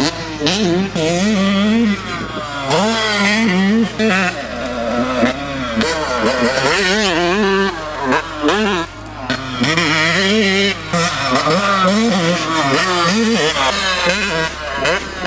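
Yamaha YZ125 two-stroke motocross engine with a Pro Circuit exhaust, ridden hard: the revs rise and fall quickly as the throttle is worked, with short dips every few seconds where the throttle is shut.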